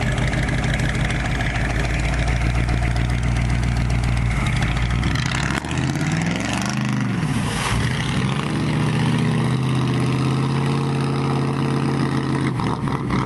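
Truck engine running steadily, revved up and back down twice about six to seven seconds in, then held at a higher, steady engine speed.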